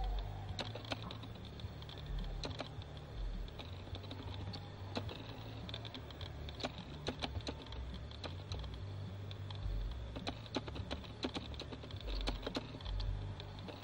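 Outdoor ambience: many irregular light clicks and crackles, several a second, over a steady high-pitched drone and a low rumble.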